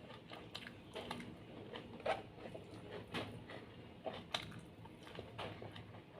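Close-miked mukbang eating sounds: a person chewing with wet mouth smacks and a few sharper, crunchier bites about two, three and four seconds in.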